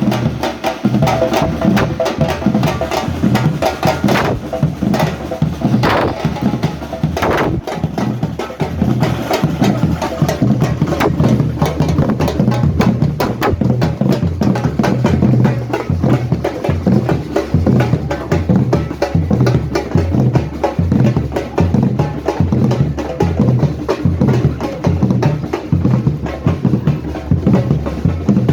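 Drums and hand percussion played together in a steady, driving rhythm, with sharp clacking strikes over low drum beats.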